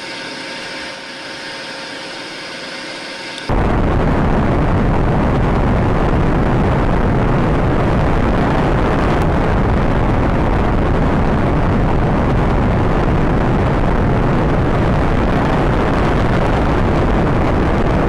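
Rocket engines at liftoff: after a quieter stretch of steady hiss with faint hum tones, a loud, steady rumbling rocket noise sets in suddenly about three and a half seconds in and holds.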